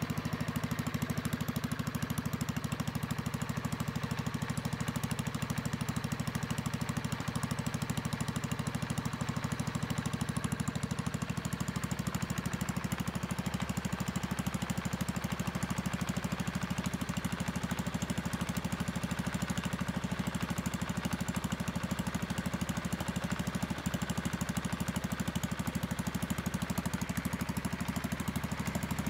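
Kohler K301 single-cylinder engine on a Howard Gem rotovator, running steadily out of gear.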